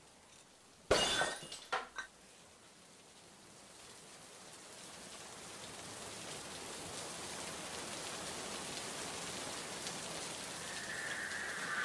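A sudden shattering crash of breaking glass about a second in, followed by two smaller clinks. Then a steady hiss like heavy rain slowly grows louder.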